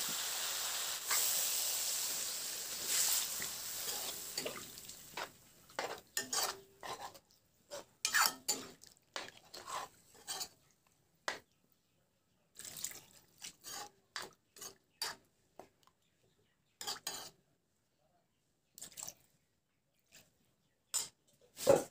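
Pork sizzling in a metal pot, the sizzle dying away about five seconds in. After that a metal ladle scrapes and clinks against the pot while stirring the pork in gravy, with one sharp knock near the end.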